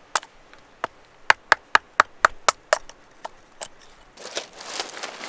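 Kindling being split from wood with sharp knocks: a couple of single knocks, then a quick run of about four taps a second, followed by a short rustle near the end.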